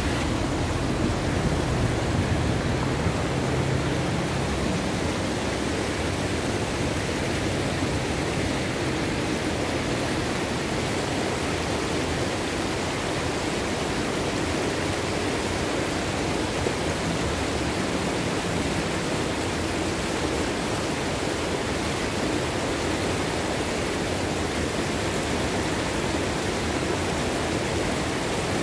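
Muddy arroyo swollen with runoff from heavy rain, its fast water rushing over rocks in a steady, loud rush.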